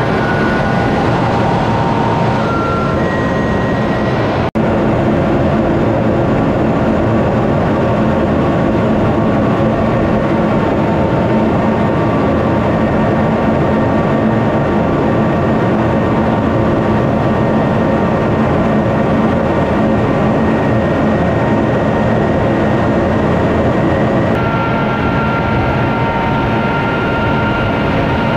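Steady jet noise heard inside the cockpit of a KAI T-50B jet trainer in flight: a loud, even rush of engine and airflow with faint steady whines over it. The sound drops out for an instant about four and a half seconds in.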